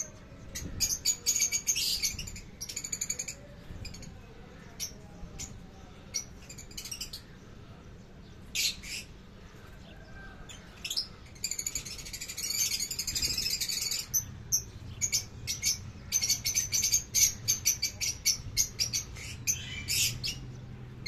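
Young Fischer's lovebird chick chirping in runs of rapid, short, high-pitched calls, each run lasting one to several seconds with short pauses between.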